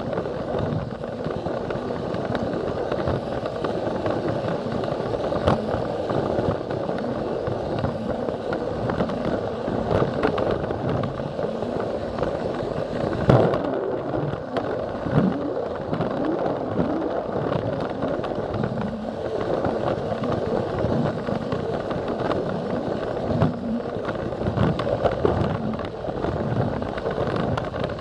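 Battery-powered Plarail toy train running along plastic track, heard from on board: a steady motor whir with the plastic wheels clicking and rattling over the track, and a sharper knock about halfway through.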